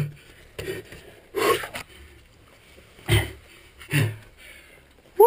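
A rock climber breathing hard in short, forceful exhalations every second or so while pulling through a strenuous move.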